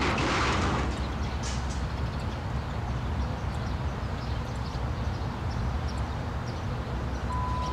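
A car crash heard through a security camera's microphone, the car tipping onto its side: a short rush of noise in the first second, then a steady low rumble.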